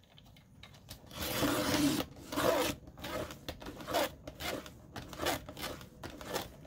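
Paper rubbing and sliding against the plastic bed of a Fiskars paper trimmer as the sheet is shifted into position, in a long scrape followed by a run of short irregular scraping strokes.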